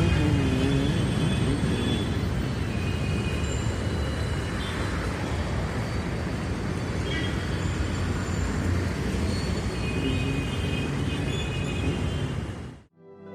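Busy city street traffic ambience: a steady rumble of engines and tyres with brief high tones now and then. It fades out near the end, and a few notes of soft music come in just as it stops.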